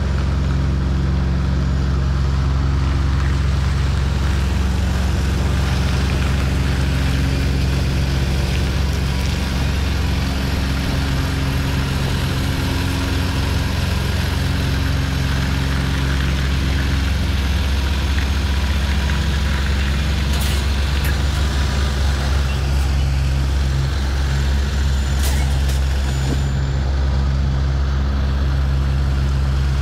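A semi truck's diesel engine running steadily at low revs, a constant low drone, as the rig is maneuvered slowly. A few brief clicks come about two-thirds of the way through.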